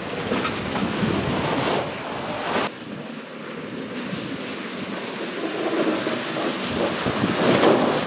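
GMC Sierra pickup with a front snow plow pushing snow along a paved driveway: the blade shoving and scraping snow over the engine's running. The scraping noise cuts off sharply about two and a half seconds in, then the truck grows louder as it drives close by near the end.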